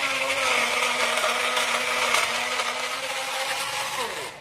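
Electric blender running steadily, puréeing chopped bilimbi fruit, fennel seeds and palm sugar in warm water. It is switched off just after four seconds in, and the motor's pitch falls as it spins down.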